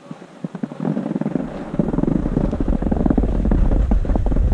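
Wind buffeting the microphone while moving downhill on snow, with rough scraping over the snow; it starts about a second in and grows louder.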